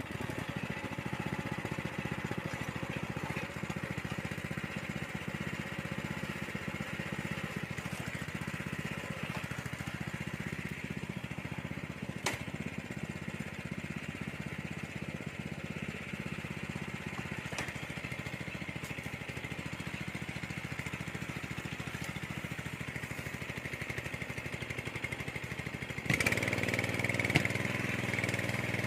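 Small engine of a walk-behind soil tiller running steadily. Near the end it gets louder and sharper, as if revved up or working harder.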